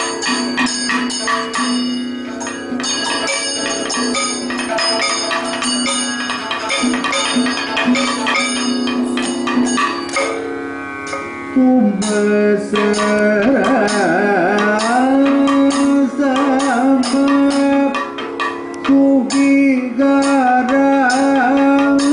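Live Kathakali music with rhythmic percussion strikes and held tones. About twelve seconds in, a male singer's voice comes in strongly, its pitch swaying in ornamented bends.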